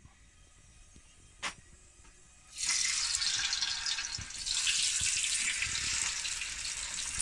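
Fish frying in hot oil in a large pan: a crackling sizzle starts suddenly about two and a half seconds in and grows louder a couple of seconds later. A single click comes just before, about one and a half seconds in.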